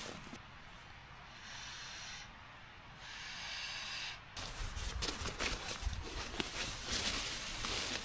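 Air rushing into an inflatable sleeping pad in two pushes of about a second each, then rustling and handling noise as the pad is worked on.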